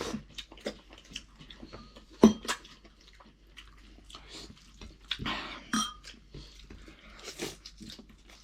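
Eating sounds close to the microphone: chewing and clinks of a plate, with one sharp, loud sound about two seconds in.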